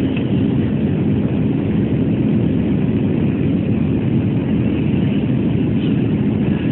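Steady low rumble of jet airliner cabin noise in flight: engine and airflow noise heard from inside the passenger cabin.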